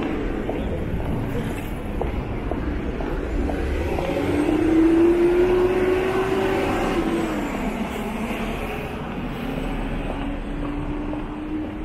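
City street traffic rumbling steadily. A motor vehicle passes close by, its engine note rising in pitch and loudest about five seconds in, then dropping away, with another engine hum holding steady near the end.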